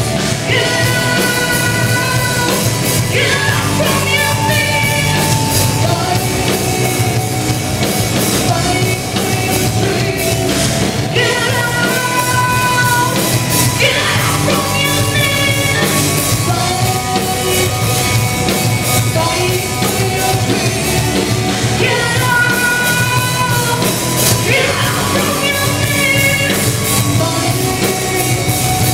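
Live heavy metal band playing loud distorted guitars, bass and drums, with a female singer carrying held melodic vocal phrases into a microphone over them.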